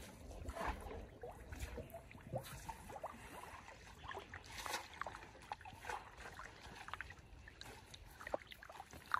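Muddy pond water sloshing and dripping as a wet fishing net is hauled out by hand, with irregular small splashes.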